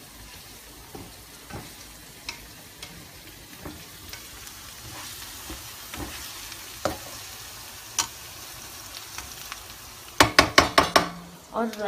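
Curry leaves and onion frying in oil in a pan, a soft sizzle under the scrape and tap of a spatula stirring now and then. About ten seconds in comes a quick run of loud knocks of the spatula against the pan.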